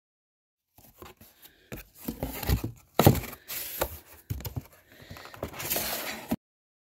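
Cardboard box being opened by hand and a paperback book pulled out: irregular rustling and scraping of the cardboard flaps with several sharp knocks. It starts about a second in and cuts off abruptly near the end.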